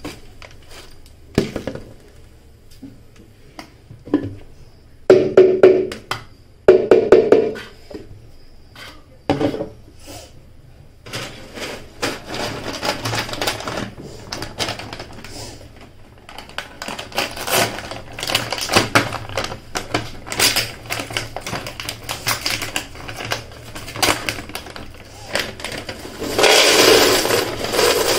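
Dry ingredients rattling and clattering in a plastic mixer-grinder jar as they are poured and shaken, with a few louder knocks early on and a long stretch of rapid small clicks. A louder, noisier pour comes near the end.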